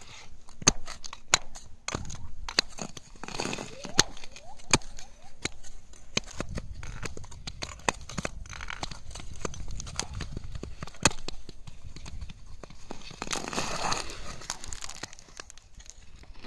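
Ice skates gliding and scraping over clear lake ice, with a longer scraping stroke near the end, while the ice gives off many sharp ticks and pops and some gliding pings: the whale-like singing of a frozen lake.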